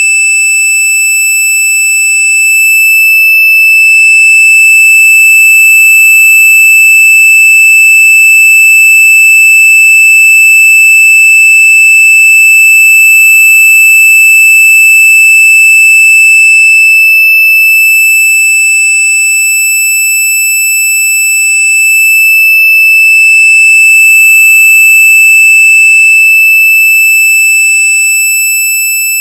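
Very loud, high-pitched electronic tone held at one steady pitch, with faint flickering overtones.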